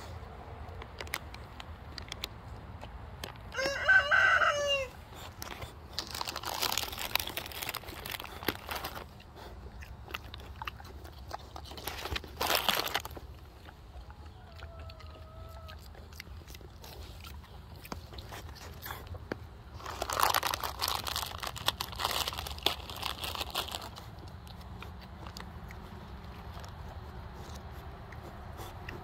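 A rooster crows once, about four seconds in. Stretches of rustling, crunching noise follow, and a faint short call comes near the middle.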